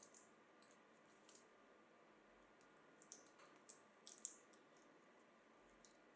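Faint, irregular small clicks and ticks over a low hiss, bunching into a quick cluster between about three and four and a half seconds in, where they are loudest.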